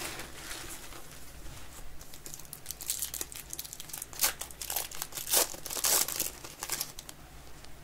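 Foil trading-card pack wrapper being torn open and crinkled by hand, with a run of sharp crackles loudest between about four and six seconds in.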